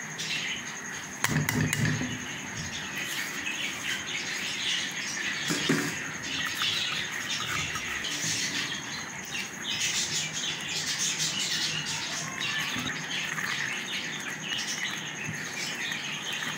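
Thick milk, sugar and ghee mixture bubbling and crackling in a metal pan as it cooks down, with a spatula knocking against the pan twice in the first six seconds.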